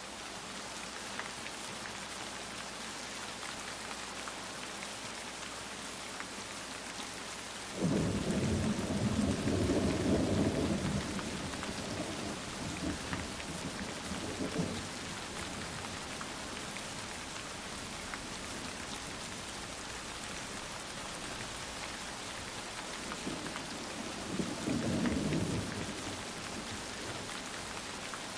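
Steady rain pattering throughout, with two low rolling rumbles of thunder: a loud one starting suddenly about eight seconds in and lasting about three seconds, and a quieter one near the end.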